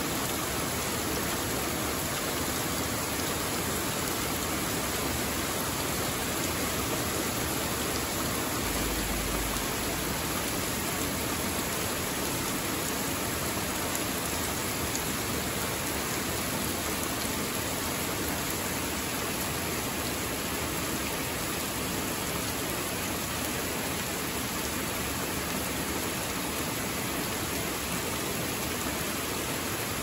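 Steady heavy rain falling on a leafy forest canopy: an even, unbroken hiss of drops on leaves.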